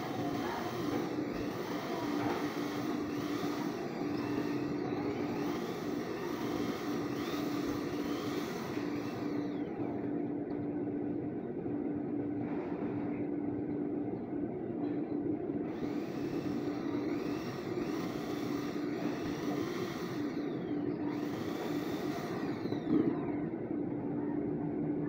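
Corded electric drill spinning a valve-lapping tool against a valve seat in a cylinder head for the first several seconds, then stopping, over a steady mechanical drone that carries on. A single knock near the end.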